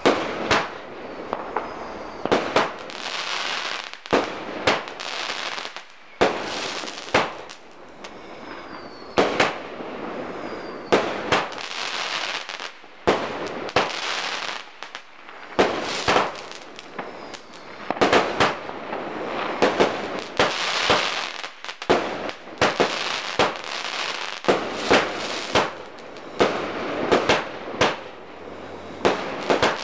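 Klasek Top Edition firework cake firing a long barrage. Many sharp bangs, often in quick pairs or runs, come as shots launch and burst, over a continuous hiss.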